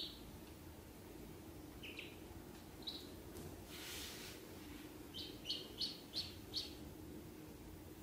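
Ducklings peeping: a few single high peeps, then a run of five quick peeps from about five to six and a half seconds in. A brief soft rustle comes near the middle.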